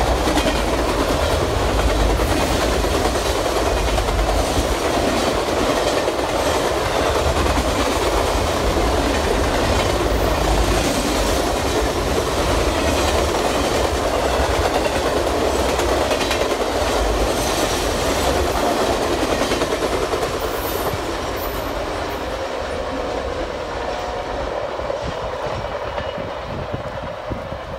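Triple Crown RoadRailer train, highway trailers on rail bogies, rolling past with a steady low rumble and wheels clicking over rail joints. The sound fades over the last several seconds as the end of the train passes.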